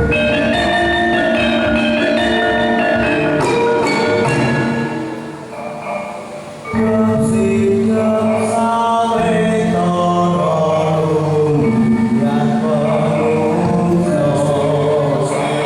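Gamelan-style dance accompaniment: a melody played on tuned mallet percussion. It eases off briefly, then comes back fuller with sustained low notes and voices singing over it.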